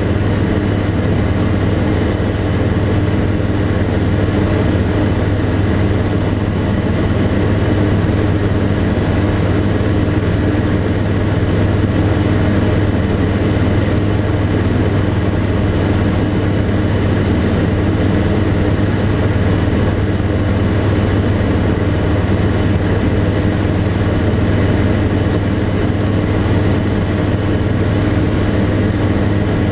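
The Rotax 912 flat-four engine and propeller of a Tecnam P92 Echo Super ultralight droning steadily in flight, heard from inside the cockpit. A constant deep hum with a steady tone above it, with no change in pitch or loudness.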